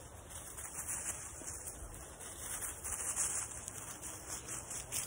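Quiet outdoor ambience: a steady high hiss that swells slightly partway through, with faint brief rustles.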